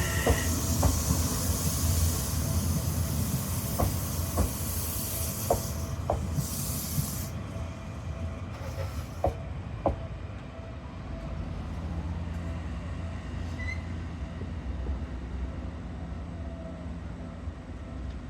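Seibu 8000 series electric train creeping to a stop: pairs of wheel clicks over rail joints come further and further apart and end about ten seconds in, under a hiss that stops around seven seconds in. After that there is only a steady low hum from the standing train.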